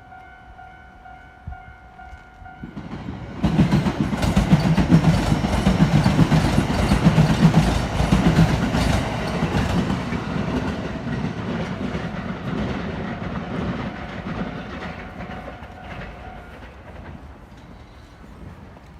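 A level-crossing warning bell rings steadily and stops about three seconds in. Then a JR Hanwa Line train passes over the crossing, its wheels clattering over the rail joints. The sound comes on suddenly, is loudest for about five seconds and fades slowly as the train moves away.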